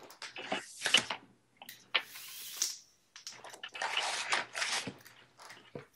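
Window blind being adjusted: three bursts of rustling and clattering as the slats are twisted shut.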